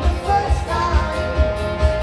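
Live band playing amplified dance music: a steady kick-drum beat about twice a second under held melody notes, with a singer's voice.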